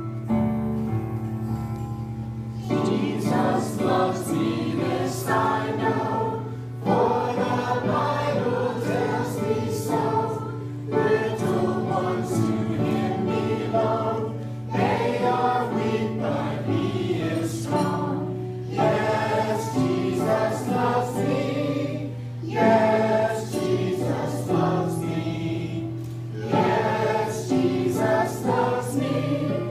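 Choir singing a gospel-style Christian song in phrases separated by short breaks, over a steady low hum.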